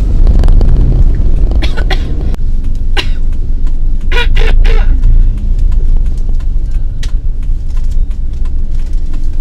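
A few short, put-on coughs, ending in a quick run of three about four seconds in. They sound over the steady low rumble of a car cabin on the move.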